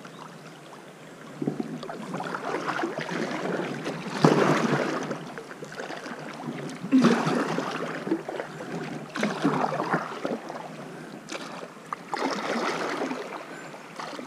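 Double-bladed kayak paddle dipping and pulling through river water, a splashing stroke every two to three seconds.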